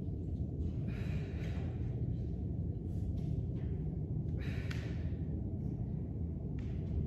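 A person breathing hard during push-ups, with three noisy breaths spaced a second or two apart, over a steady low hum.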